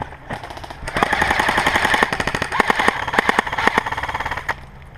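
Airsoft electric rifle firing on full auto: a long burst of rapid mechanical clatter starting about a second in and stopping shortly before the end.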